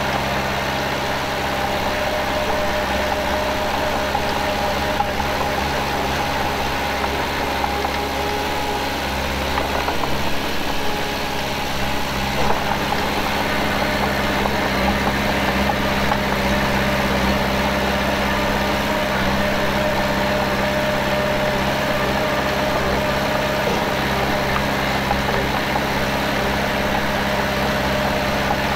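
Diesel engine of heavy earthmoving machinery running steadily, with a few brief knocks between about ten and thirteen seconds in.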